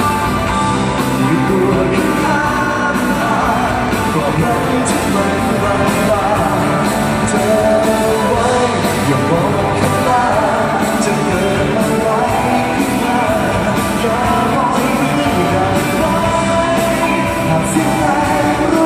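Live pop-rock band playing, with a drum kit, while a male vocalist sings into a microphone. It is recorded from the audience in a concert hall.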